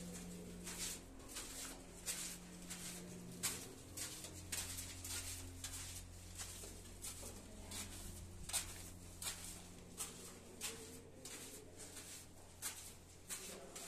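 Footsteps of someone walking on a cave floor, about two steps a second, over a low steady hum.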